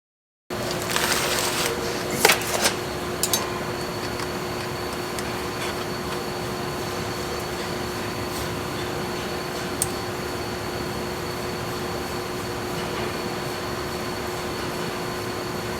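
A steady hum of machinery or room ventilation, carrying a few constant tones, starting abruptly after a moment of silence. A few sharp clicks and knocks of small parts being handled come about two to three seconds in.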